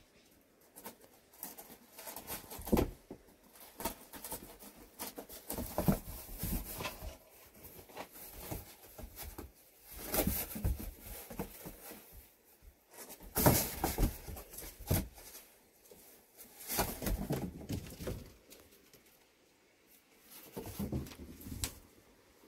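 Kittens playing and scuffling, with irregular rustling, scratching and light knocks from paws and bodies on sheeting and boards. A few sharper knocks stand out among the rustles.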